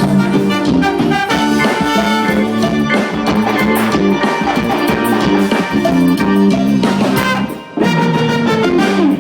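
Live band playing a song at a soundcheck, with a steady beat and held notes; the music dips briefly about a second and a half before the end, then comes back in.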